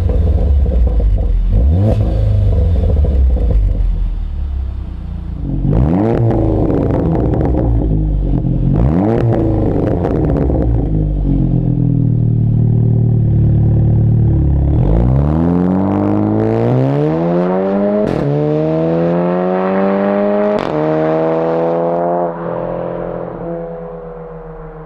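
Seat Leon Cupra ST 300 4Drive's turbocharged four-cylinder through a 3.5-inch straight-pipe valved exhaust, revved at standstill with the exhaust valve first closed, then open. Then it pulls away under hard acceleration, the pitch climbing through two quick upshifts, each with a sharp crack, and fades as the car drives off.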